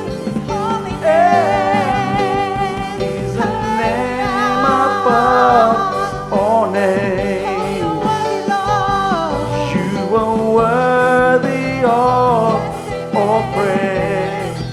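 Contemporary worship song: a band playing with held, wavering sung vocal lines over it.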